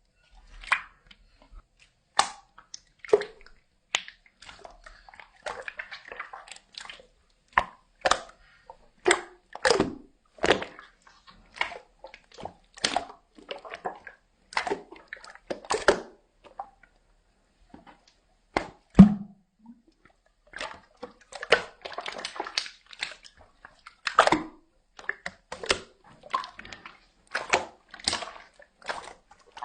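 Slime being squished and pressed by hand: a run of short wet squelches and pops at an irregular pace, with one louder, deeper squelch a little past halfway.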